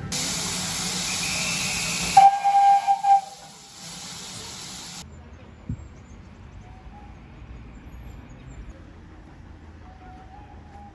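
Steam locomotive venting steam in a loud, steady hiss, with a short whistle blast about two seconds in. The hiss cuts off suddenly at about five seconds, leaving a quieter low rumble.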